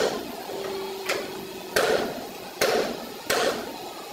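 Sharp metal-on-metal hammer taps on a tool held against a Toyota Corolla's steel door sill, five strikes spaced roughly a second apart, one of them lighter, each with a short ring.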